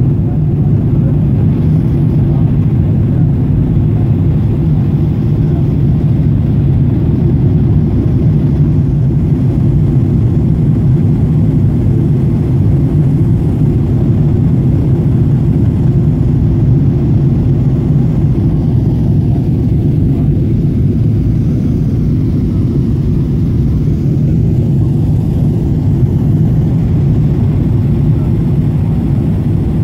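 Steady low cabin noise of an airliner descending to land: the drone of the jet engines and the rush of air heard from a window seat.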